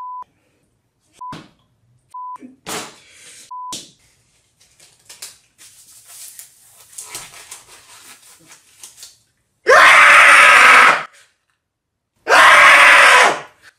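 A man screams twice, very loud and distorted, about ten and twelve seconds in, in anger. Before that come four short censor bleeps, a steady high beep tone, and then soft rubbery rustling while a rubber glove is pulled over his head.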